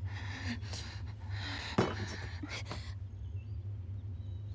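A person gasping and breathing hard in short breathy bursts, with a sharp click about two seconds in. The breathing stops about three seconds in, leaving a steady low hum.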